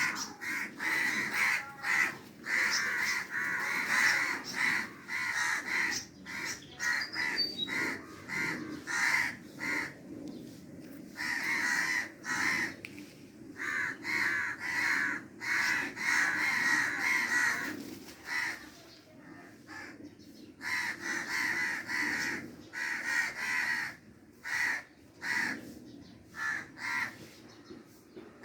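Crows cawing over and over, harsh calls coming in quick runs with short pauses between them.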